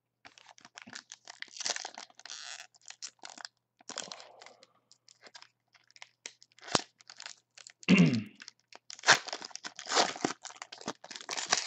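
Trading-card pack wrapper crinkling and tearing as a pack of basketball cards is opened, with cards handled and slid against each other in short irregular crackles; a louder rasp that drops in pitch comes about eight seconds in.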